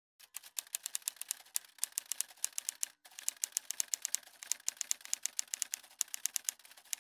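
Typewriter keys clacking in a quick run of sharp strokes, several a second, with a short pause about three seconds in before the typing starts again.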